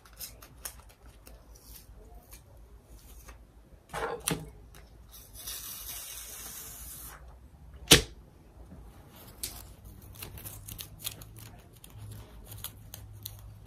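Handling noises from a felt Christmas stocking with iron-on lettering: light rustles and small clicks, a longer rustling hiss in the middle, and one sharp click about eight seconds in.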